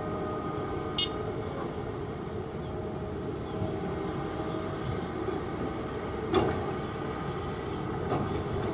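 Kobelco hydraulic excavator's diesel engine running steadily under load, with two sharp knocks, one about a second in and a louder one near six and a half seconds.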